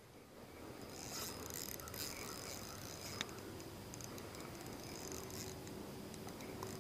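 Spinning reel being cranked, its gears whirring steadily as line is wound in on a hooked fish, with a sharp click about three seconds in.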